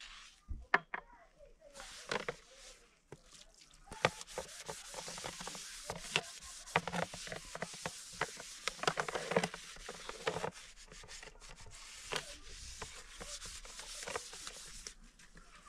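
Scouring pad scrubbing a metal serving tray in quick rasping strokes, with a few sharp clicks in the first two seconds.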